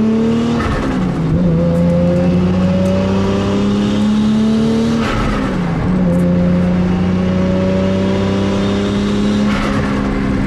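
Toyota Supra MK4's tuned turbocharged straight-six pulling through the gears: the engine note climbs slowly, drops sharply at a gear change about a second in and again about five seconds in, each time with a brief hiss, then holds steady.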